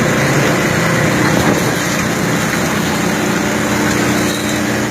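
Small boat engine running steadily at a constant speed.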